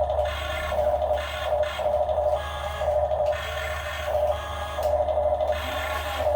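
A model excavator's electric motors whining steadily, the whine swelling and dipping in short pulses about every half second over a low steady hum.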